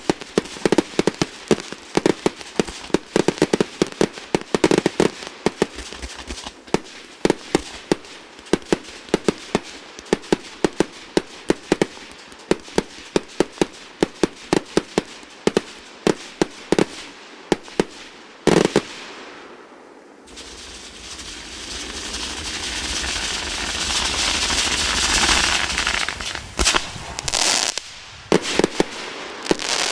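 Fireworks display: rapid volleys of sharp bangs, several a second, ending in one loud bang about eighteen seconds in. After a short lull a dense crackling hiss swells up, with a few more bangs near the end.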